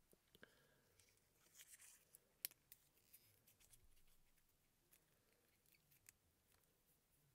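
Near silence with faint clicks and rustles of a silicone resin mold being handled and flexed, and one sharper click about two and a half seconds in.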